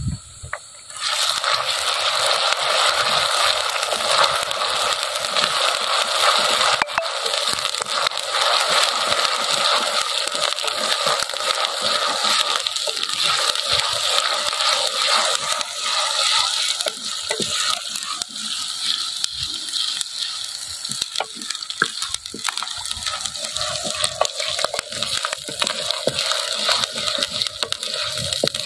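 Chopped onions frying in hot oil in a clay pot, sizzling loudly. The sizzle starts suddenly about a second in, with a wooden spatula scraping and stirring, and softens a little in the last few seconds.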